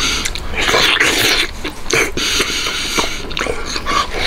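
Close-miked mouth sounds of a person eating braised pork knuckle: biting into and chewing the soft, sauce-coated skin, in irregular bursts with small clicks.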